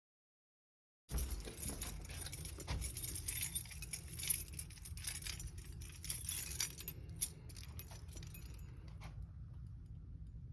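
A ring of keys jangling and clicking as a key is worked in a door's deadbolt lock, starting about a second in and thinning to scattered clicks after about seven seconds.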